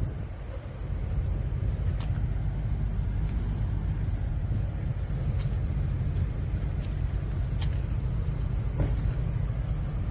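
Steady low rumble of a vehicle engine running nearby, with a few light clicks over it.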